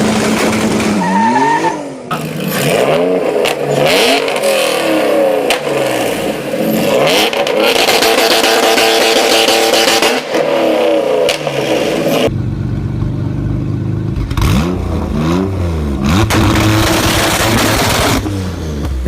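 Honda C30A 3-litre V6 engine revving up and down repeatedly. About twelve seconds in, it cuts abruptly to a second, deeper-sounding clip that revs again.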